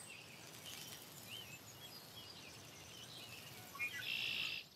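Faint countryside ambience with scattered short bird chirps and whistles. Near the end comes a quick run of notes and then a brief, louder buzzy trill.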